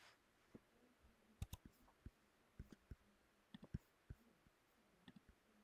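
Near silence with about a dozen faint, scattered clicks from a computer being operated, some in quick runs of two or three.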